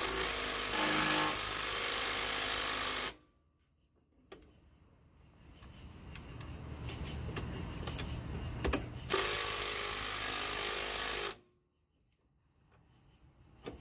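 Cordless impact driver hammering on bolts of a Kodiak jet pump, in two loud bursts of about three and two seconds that stop abruptly. Before the second burst a quieter run builds up.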